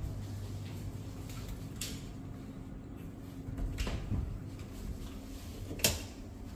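Built-in wooden wardrobe door being opened: two light clicks, then a sharp, louder click near the end as the door is pulled open. A steady low hum runs underneath.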